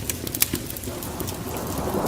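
Wood fire crackling, with a few sharp pops in the first half. From about halfway a steady hiss of rain fades in and grows louder beneath the crackling.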